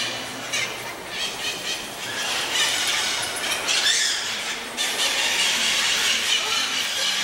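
A colony of oilbirds (guácharos) screeching inside the cave, a dense, continuous mass of harsh high cries, with one louder rising cry about four seconds in.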